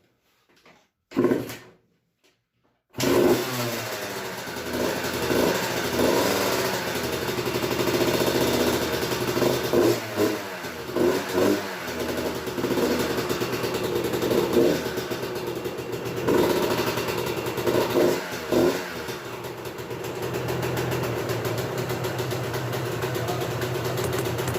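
2000 Kawasaki KX125's single-cylinder two-stroke engine, freshly rebuilt with a new piston and cylinder, kicked over and catching about three seconds in, then running with repeated throttle blips and revs.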